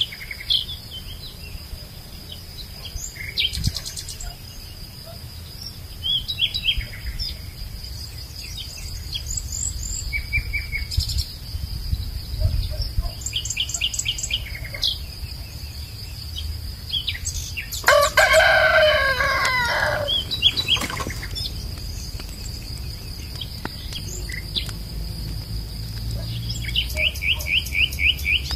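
Small birds chirping in repeated quick series over a steady high insect drone, with a rooster crowing once for about two seconds around two-thirds of the way in.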